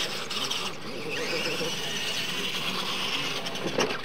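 Radio-controlled monster trucks racing on a dirt track: a steady high motor and gear whine.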